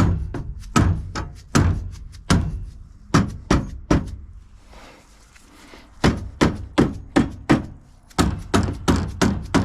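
Hammer blows on a 1948-50 Packard's seized hood-latch mechanism, knocking it loose: a run of strikes about one a second, a pause of under two seconds around the middle, then quicker strikes about three a second.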